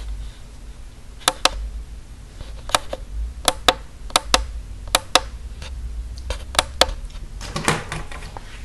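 Sharp clicks, about a dozen and mostly in pairs, as a TI-84 Plus graphing calculator is handled and set down, over a low handling rumble, with a rustle of paper near the end.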